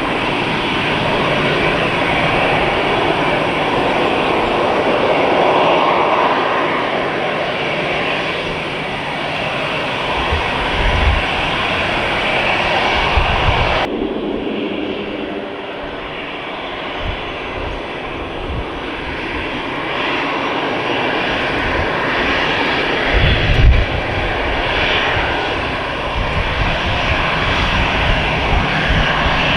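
Airbus A320 jet engines running with a steady, loud noise, its tone shifting abruptly about halfway through, with a few brief low thumps.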